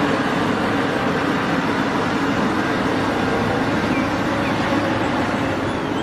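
Caterpillar 6015B hydraulic mining excavator working: its diesel engine runs steadily under load, a low hum beneath an even rushing noise.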